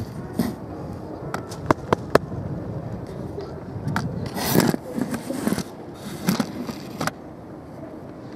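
Close scrapes and sharp clicks as the camera is handled and moved about on stone paving, with a few louder rustling scrapes in the second half. Voices of passers-by sound behind.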